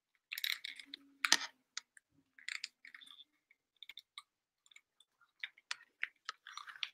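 Handling noise: irregular clicks, scrapes and rustles as over-ear headphones are settled on the head and hands move close to the microphone, with one louder click about a second in.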